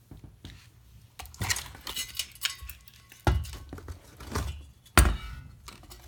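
Metal clinks and rattles from a chrome-plated ceiling fan motor housing being handled and turned over, with two heavy knocks about three and five seconds in.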